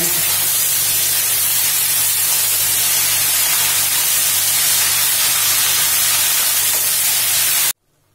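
Spinach and potato pieces frying in hot oil in an aluminium kadai, a steady loud hiss that cuts off suddenly near the end.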